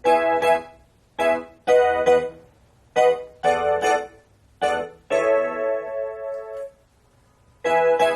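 Roland EP-7 digital keyboard playing a piano or electric piano voice: short chords struck in phrases, each left to ring and die away, with brief pauses between them.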